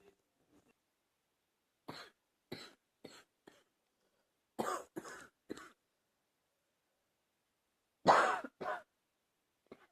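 A person coughing in short bouts brought on by an allergy flare-up: four lighter coughs about two seconds in, three stronger ones near the middle, and two loud coughs near the end.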